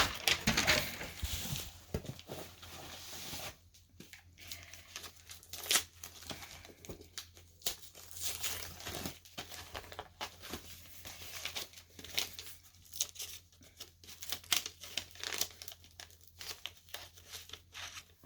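Packing material being crinkled, rustled and torn by hand, in irregular bursts with small sharp clicks, and a louder knock right at the start.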